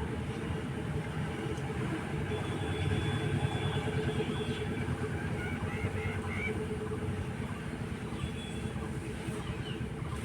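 Steady low mechanical rumble, with a few brief high bird chirps and whistles over it about two to three seconds in and again around six seconds in.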